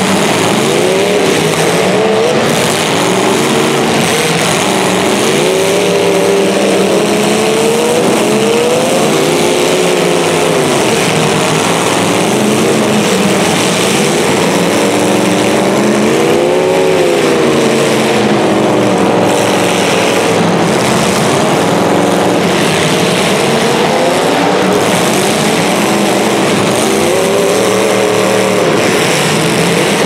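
Demolition derby cars' engines running hard through open exhaust stacks, revving up and down again and again, several at once.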